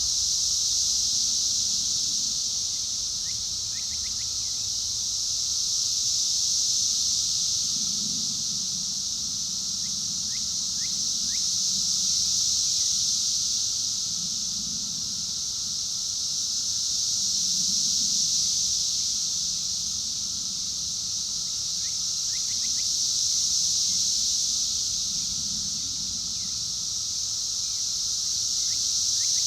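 Cicada chorus: a loud, steady high buzz that swells and fades about every five to six seconds. A few faint short mockingbird notes come through under it now and then.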